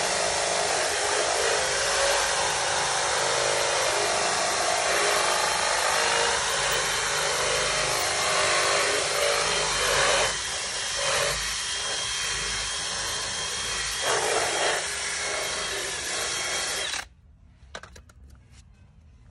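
DeWalt cordless drill spinning a round scrubbing attachment against a vinyl car door panel, running steadily with a couple of dips in level as it is worked over the panel. It cuts off suddenly near the end, leaving a few faint clicks.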